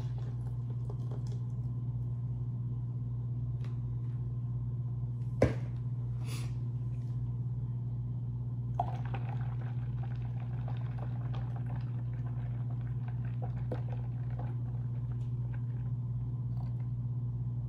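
A steady low hum runs throughout, with a few light clicks and knocks. One sharper knock comes about five seconds in.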